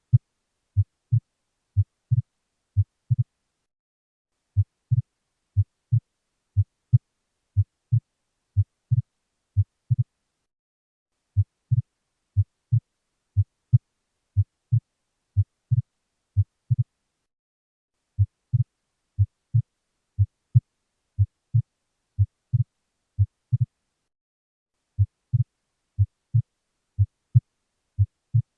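Heartbeat heard through a stethoscope: low, dull thumps repeating steadily in lub-dub cycles, with the second heart sound split into two close components. There is a short break about every seven seconds.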